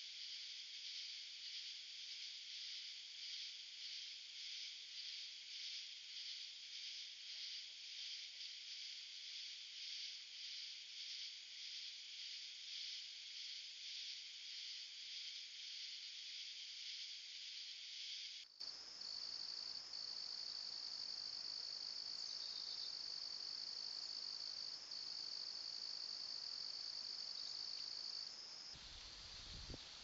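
A chorus of night insects: a high, pulsing chirping about twice a second, then, after an abrupt change about two-thirds of the way in, a single steady unbroken high-pitched trill. Near the end it switches to a low rumbling noise.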